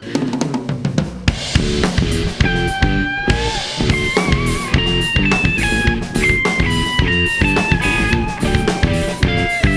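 Live rock band playing loud: drum kit with rapid hits, bass and guitar, with a held melody line coming in on top about two and a half seconds in.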